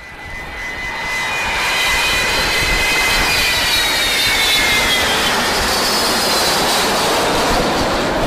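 Jet aircraft flying over: a loud roar that swells up over the first couple of seconds and then holds, with a high whine that slowly falls in pitch.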